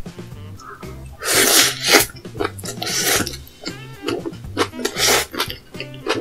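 Loud slurping of black-bean noodles (jajangmyeon), with chewing in between. There are three big slurps: one about a second in that lasts most of a second, one around three seconds and a short one near five seconds. Background music with a steady bass line plays underneath.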